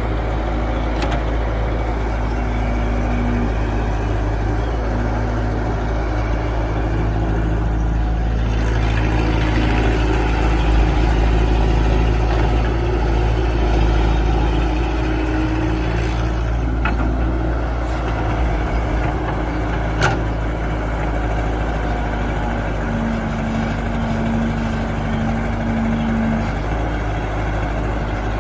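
Excavator's diesel engine running steadily, growing louder for several seconds in the middle as it works, with a brief held whine now and then and two sharp knocks near the middle.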